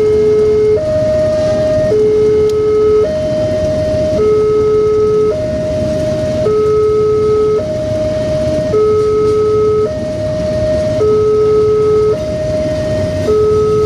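Two-tone electronic railway level-crossing alarm, alternating steadily between a low and a high tone about once a second, over the continuous rumble of a long oil tank-car train rolling past.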